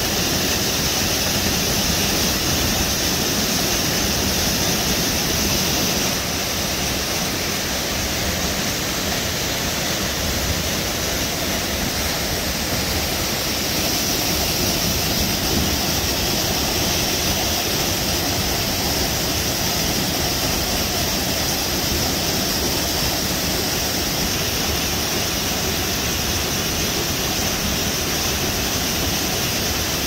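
Waterfall pouring over rock and crashing into the pool below, heard close: a loud, steady rushing hiss with no break.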